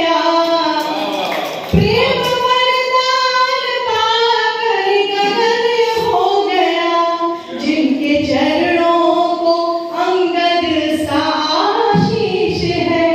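A woman singing a Hindi love song (geet) solo into a handheld microphone, unaccompanied, in long held phrases with brief pauses for breath.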